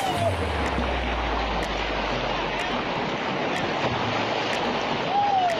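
Rushing whitewater of a river rapid churning and splashing right at the microphone, a steady dense roar. A short rising-then-falling tone comes at the start and again about five seconds in.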